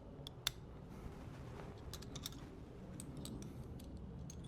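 Scattered light clicks and ticks of small metal parts and hand tools being handled, at irregular times, with a sharp click about half a second in.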